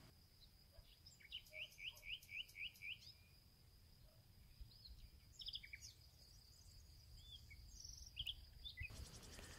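Faint birdsong: a run of about eight quick rising chirps, then scattered calls, over a thin steady high tone.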